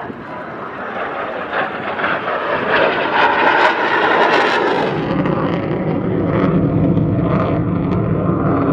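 Jet noise from the single Pratt & Whitney F135 turbofan of an F-35A Lightning II flying past and climbing away. The noise grows louder to a crackling peak about three to four seconds in, then turns to a deeper rumble as the jet moves off.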